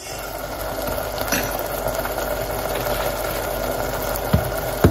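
Chopped onions and tomatoes sizzling and simmering steadily in oil in a stainless steel pot. Two light knocks come near the end.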